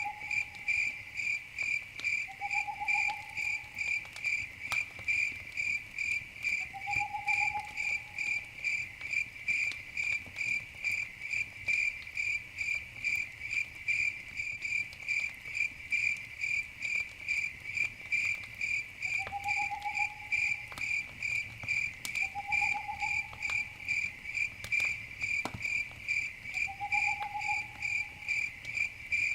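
Crickets chirping steadily in an even, rapid pulse of high chirps. A lower, short call that rises slightly comes six times, with a few faint crackles of a campfire in between.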